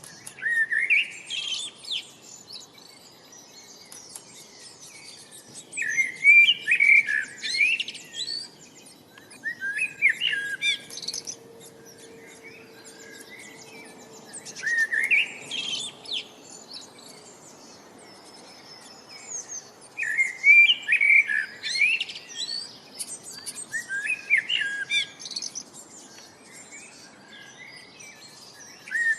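Birds singing: short chirping phrases of one to two seconds that rise in pitch, coming back every few seconds with quieter gaps between, over a faint steady background hiss.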